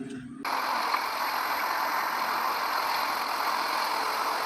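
Water running steadily as a muddy toy loader is washed, starting abruptly about half a second in.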